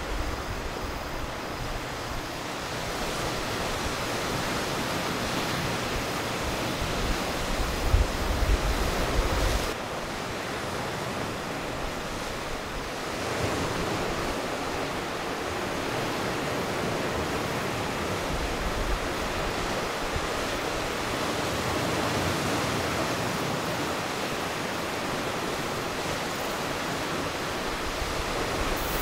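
Steady wash of sea surf with wind blowing over the microphone; a stronger gust buffets the microphone from about eight to ten seconds in.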